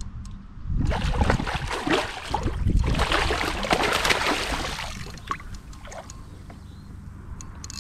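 A ray thrashing at the surface right beside a kayak, a burst of heavy splashing lasting about four seconds, then dying down to light water sounds.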